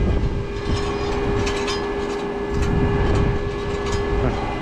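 Tractor engine running at idle with a low rumble, a steady high whine that cuts off near the end, and a few short clicks.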